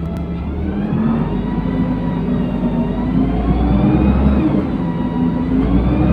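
LiAZ-5292.67 city bus accelerating, heard from inside the passenger cabin. The engine and drivetrain whine climb in pitch, dip about four seconds in, then climb again.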